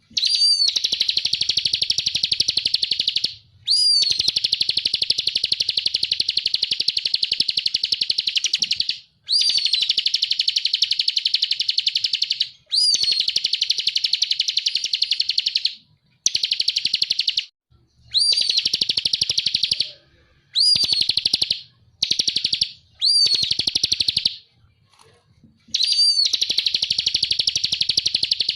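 Bar-winged prinia (ciblek kristal) singing steadily: about ten phrases, each opening with a short rising-then-falling note that runs into a long, fast, rattling trill lasting from one to five seconds, with brief pauses between phrases.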